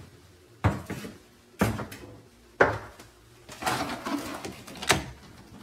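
Three footsteps about a second apart walking up to a front door, then the rattle of hands on the door's lever handle and lock, ending in a sharp latch click.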